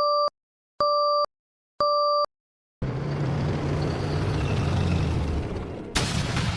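Intro sound effects: three short electronic beeps about a second apart, like a countdown, then a steady low rumbling noise with a sharp hit near the end.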